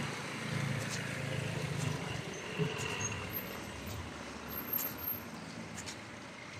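Street traffic: a motor vehicle's engine hum, strongest for the first two seconds and then fading away, with a few faint clicks.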